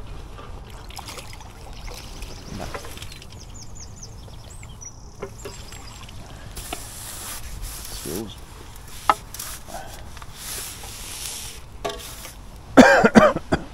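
Pole and tackle being handled on a fishing platform while a fish is played and netted: soft knocks, rubs and trickling water, with a sharp click about nine seconds in. Faint high chirps come around three to five seconds in, and near the end a loud burst of several short voice sounds from the angler.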